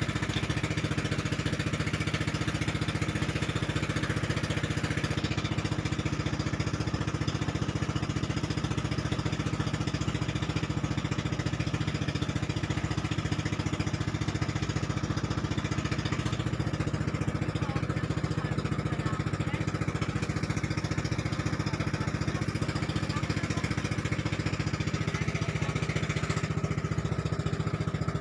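Engine of a bangka, a Filipino outrigger motorboat, running steadily under way: a constant low drone that holds the same pitch and level throughout.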